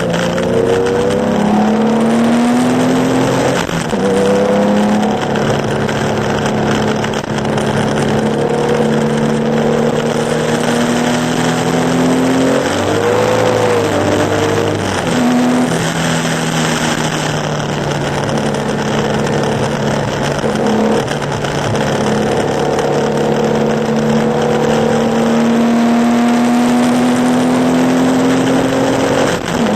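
Porsche 911 2.0's air-cooled flat-six at racing revs, its pitch climbing in long pulls through the gears and dropping at each shift, with a slow-down and pick-up around the middle. A steady hiss of spray and tyre noise from the soaked track runs under it.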